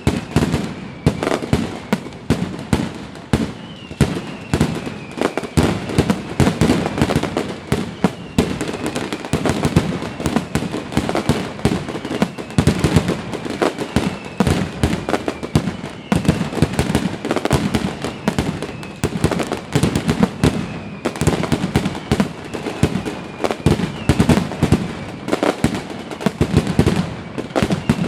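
Fireworks display going off nonstop: a dense barrage of bangs and crackling bursts. Over it, whistles falling in pitch recur every couple of seconds.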